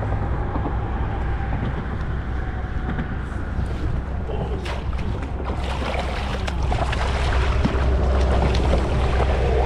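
Wind buffeting the microphone in a steady rumble, with water lapping and then splashing more busily in the second half as a hooked bluefish thrashes at the surface beside the kayak.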